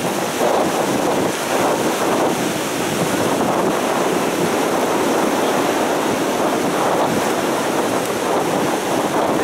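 North Sea surf breaking and washing onto the beach, steady and loud, with wind buffeting the microphone.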